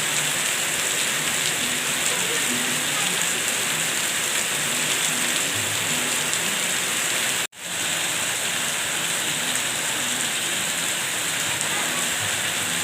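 Heavy rain falling steadily: a dense, even hiss. About seven and a half seconds in, the sound breaks off for a split second and comes straight back.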